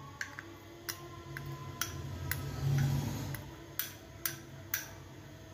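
Steel spoon clinking and tapping against a glass cup and ceramic bowl as gram flour (besan) is scooped and knocked out: a series of light, sharp clicks, about nine in all, with a pause in the middle, over a steady low hum.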